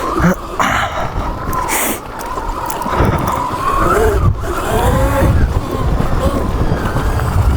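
Sur Ron electric dirt bike running on its stock motor with a 15 kW BAC4000 controller: the drive whines, its pitch rising and falling with the throttle, over a low rumble of wind and tyres.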